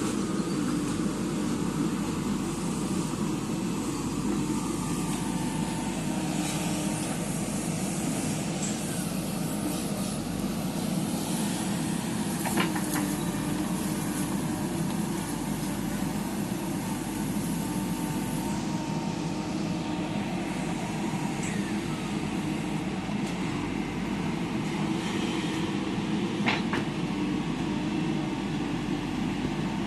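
Diesel engine of a JCB 3DX backhoe loader running steadily under working load. Two sharp metallic knocks, about halfway through and near the end.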